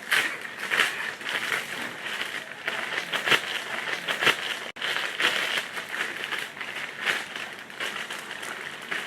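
A courier package being opened by hand: irregular rustling, crinkling and tearing of the packaging, with sharp crackles. It drops out for a moment about halfway through.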